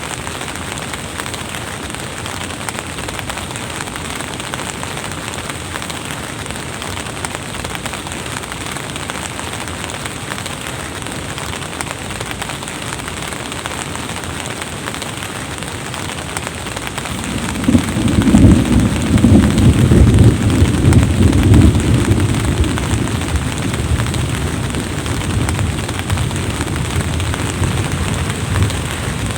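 Steady hiss of drizzling rain, with a long low rumble of thunder rolling in about seventeen seconds in, loudest for a few seconds, then slowly dying away.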